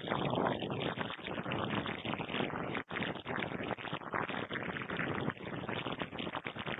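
Shortwave receiver static from single-sideband reception on the 40-metre amateur band: a steady rushing hiss cut off above 4 kHz by the receiver's audio filter, dropping out for an instant near the middle.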